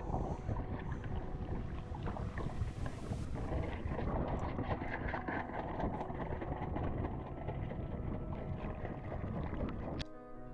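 Water sloshing and rushing against a diving camera's waterproof housing: a dense crackling wash, heaviest in the low end. It cuts off with a click near the end and gives way to piano music.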